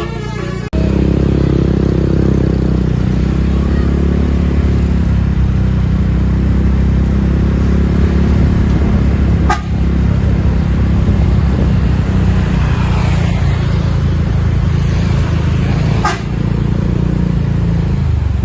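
A multi-tone telolet bus horn tune cuts off under a second in, followed by the loud, low rumble of a bus engine running close by. The rumble is steady apart from two brief breaks.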